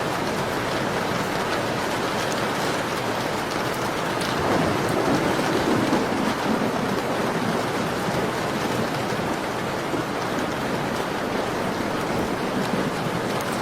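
Steady rain pattering on a window, mixed with the soft crackle of a fireplace, with a brief low swell of rumble about five seconds in.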